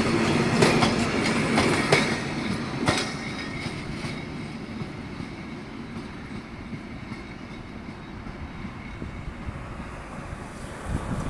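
Container freight train's wagons clattering over rail joints as the last wagons pass, with sharp wheel clicks over a rumble, then the noise fades steadily as the train moves away.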